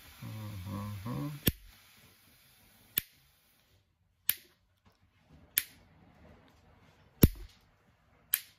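Six sharp clicks, about one every second and a half, from hand tools at work on a trimmer's power cord, with a brief low murmur of a voice near the start.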